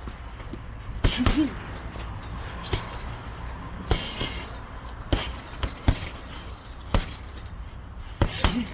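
Punches thrown in leather welding gloves landing as sharp smacks, about nine at irregular intervals, some in quick pairs.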